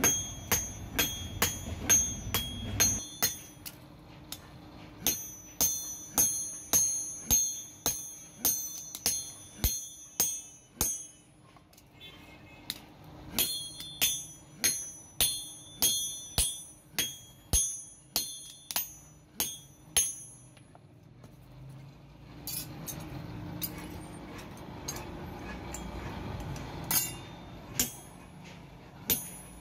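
Sledgehammer blows on hot leaf-spring steel on an anvil, struck by hand at a steady pace of about two a second, each with a bright metallic ring. The blows come in runs with short pauses, and only a few scattered blows come near the end.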